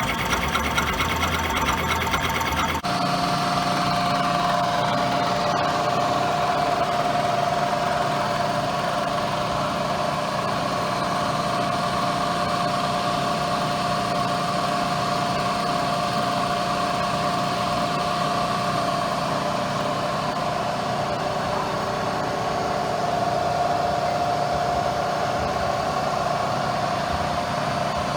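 Bridgeport milling machine shell milling steel: a steady machine tone over an even cutting noise. The sound changes abruptly about three seconds in.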